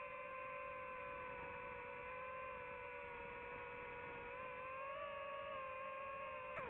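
DJI FPV drone's motors and propellers whining at a steady pitch. The pitch rises slightly about five seconds in, then drops sharply and climbs back near the end as the throttle changes.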